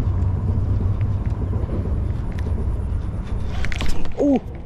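Steady low rumble, with the swish of a baitcasting rod whipped through the air in a cast about four seconds in, the loudest moment, followed by a brief grunt.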